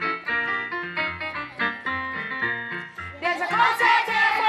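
Yamaha electronic keyboard playing a lively intro with a bass line under the melody. About three seconds in, voices join in singing, louder than the keyboard.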